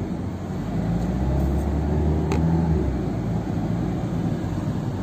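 Car engine and road noise heard from inside the cabin while driving, a low steady rumble with an engine hum that stands out between about one and three seconds in. A single short click a little after two seconds in.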